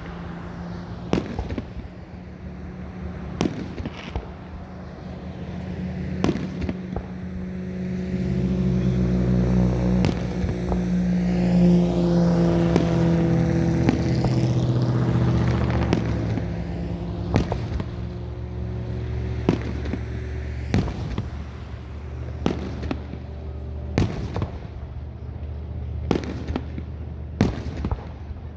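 Fireworks bursting at irregular intervals, sharp bangs and pops scattered through the whole stretch. In the middle, a loud, steady low hum swells up and fades away under the bursts.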